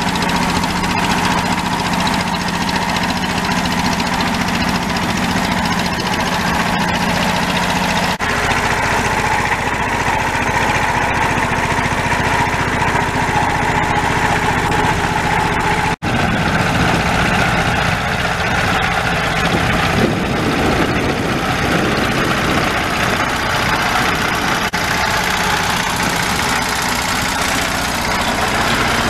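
Deutz D15 tractor's single-cylinder air-cooled diesel engine running steadily under load while pulling a plough through soil. There is a brief drop-out about halfway through.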